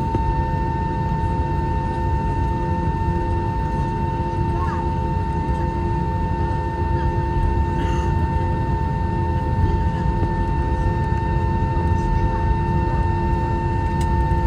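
Airbus A321's single running IAE V2500 turbofan at taxi idle, a steady high tone over a constant low rumble, with the other engine shut down for a one-engine taxi.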